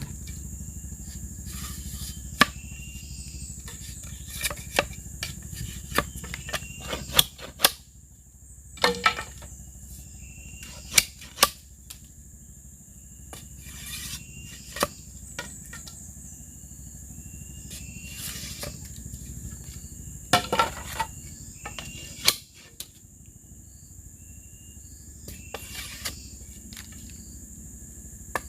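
Irregular sharp knocks and taps of tools striking bamboo, a handful of them loud, over a steady high drone of insects and short chirps repeating every couple of seconds.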